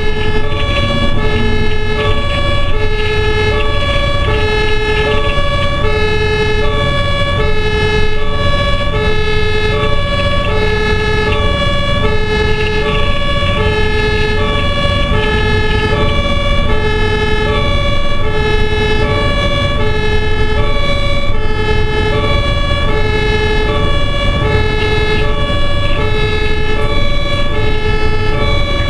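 German two-tone emergency siren (Martinshorn) of a bariatric ambulance on an emergency run, alternating steadily between a low and a high tone, each held for well under a second. It is heard from inside the cab over the low rumble of the engine and road.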